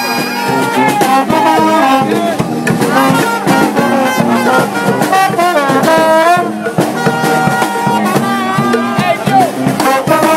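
Brass band playing a lively tune, with trumpets and trombones over a steady drum beat.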